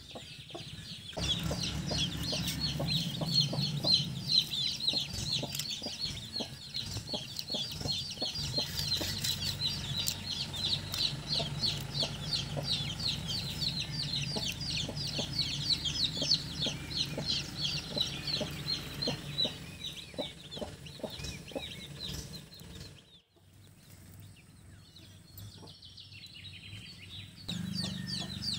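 Chickens clucking and chicks peeping, with a fast, unbroken run of short high peeps that fades out about two-thirds of the way in.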